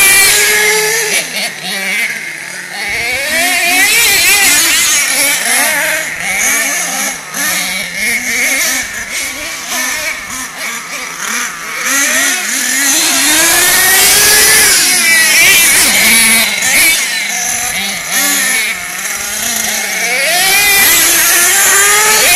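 Traxxas and HPI Savage nitro RC monster trucks' small two-stroke glow engines revving up and down, their high-pitched whine rising and falling as the trucks accelerate and back off. More than one engine is running at once.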